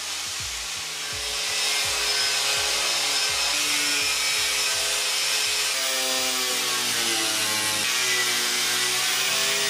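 Makita angle grinder sanding cured fiberglass, a steady noise that gets louder about a second and a half in. Background music with a steady beat runs underneath.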